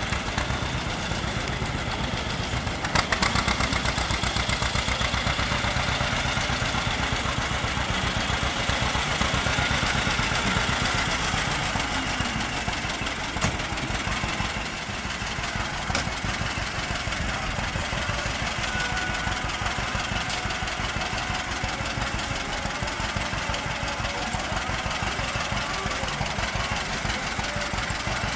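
Vintage John Deere two-cylinder tractor engine running steadily at low speed while pulling a loaded wagon. There is a sharp click about three seconds in.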